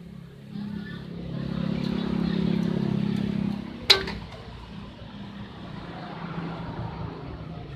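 A single sharp plastic click just before the middle as the wiring harness connector's latch is pried up and the coupler pulled apart. Under it, a low engine hum swells for a few seconds and then eases off.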